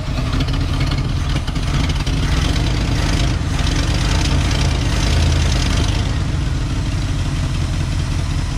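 1987 Ford F150's engine, newly converted from fuel injection to a carburetor, running steadily, with its distributor's spark advance not yet hooked up.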